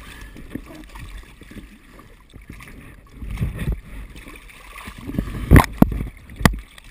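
Water lapping and sloshing against the side of an inflatable boat while parachute rigging and harness are hauled aboard, with a few dull thumps and then three sharp knocks near the end as the gear hits the boat.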